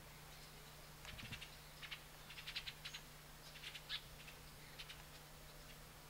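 Black-cowled oriole calling: short, high, scratchy notes in quick little clusters, repeated several times, faint.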